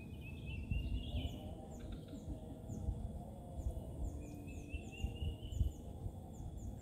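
Birds calling: wavering whistled phrases and many short falling chirps, with a thin steady high insect-like whine, over low rumbling noise broken by a few dull thumps.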